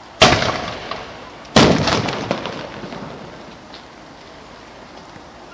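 Two cannon shots about a second and a half apart, each a sharp bang followed by a long rolling echo that fades away.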